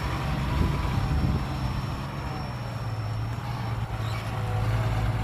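Heavy construction machine's diesel engine running steadily, a low drone with a faintly wavering tone above it.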